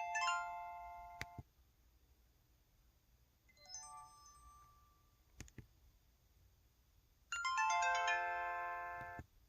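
EV-W350 mobile phone's built-in electronic jingles: three short synthesized chimes, each a quick run of bell-like notes that ring together as a chord. The last and longest one steps downward in pitch.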